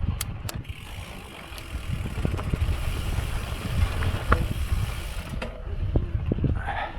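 Mountain bike riding through deep, loose sand: a steady low rumble of tyres ploughing the sand and wind on the microphone, with scattered sharp clicks and rattles from the bike.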